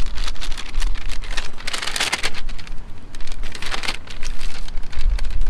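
Crinkling plastic packaging of an MRE being handled and opened, a dense crackle with two louder rustling bursts, about two seconds in and again near four seconds.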